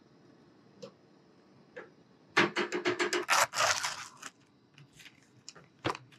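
Clear plastic clamshell food container being opened: a quick run of snapping clicks as the lid's tabs pop free, then crinkling of the thin plastic, followed by a few lighter clicks and a sharper snap near the end.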